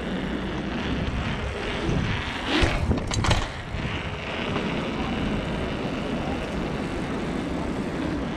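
Wind rushing over a helmet or chest camera's microphone, with the steady rumble of mountain bike tyres rolling over paving stones. A short cluster of sharp knocks and rattles comes about three seconds in.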